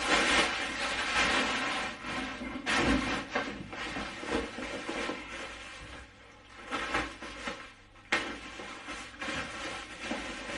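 Plastic packaging wrap crinkling and rustling as it is pulled off and handled, louder at first, with one sharp click about three-quarters of the way through.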